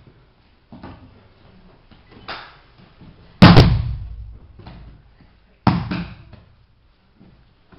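A person thrown down onto padded martial-arts mats. A loud, sharp slap and heavy thud as the body lands about three and a half seconds in, then a second heavy thud about two seconds later, with lighter thumps on the mat before.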